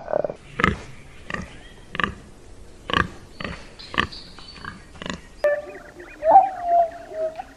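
Babirusa grunting: short, loud, irregular grunts, one every half second to a second. In the last two seconds they give way to high, wavering animal calls.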